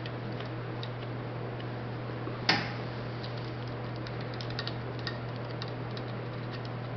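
Steady low machine hum with faint scattered metal clicks and one sharper click about two and a half seconds in, as the freshly crimped ball-and-stud swivel is taken out of the lathe and wiped off.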